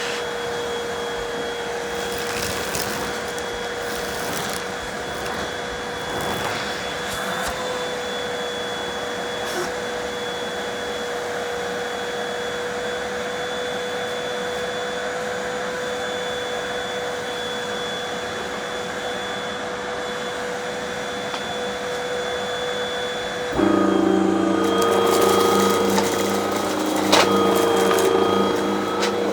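Vacuum cleaner running steadily with a constant whine, with a few short crackles in the first several seconds. About 23 seconds in its sound changes abruptly, turning louder with a deeper, many-toned hum.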